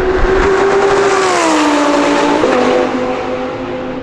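Twin-turbo Lamborghini Huracán V10 passing at high speed. Its engine note drops in pitch as it goes by, with one sudden step about two and a half seconds in, then holds and fades as it pulls away.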